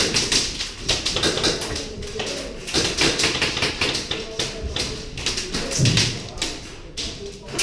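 Irregular sharp taps and clicks, with a dull thud about six seconds in.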